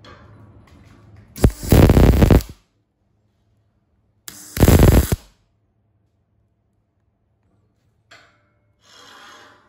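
MIG welder laying two tack welds on a steel end cap plate, each arc crackling for about a second, the two a few seconds apart.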